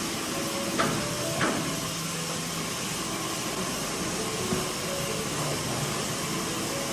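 Steady hissing machine noise, with two sharp knocks about a second and a second and a half in.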